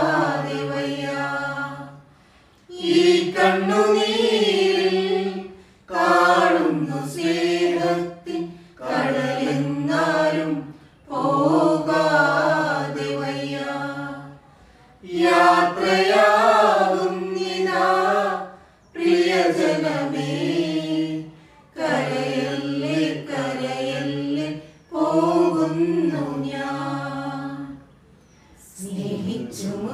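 Small choir singing a Malayalam hymn for the departed a cappella, in phrases of two to three seconds with a short pause for breath between each.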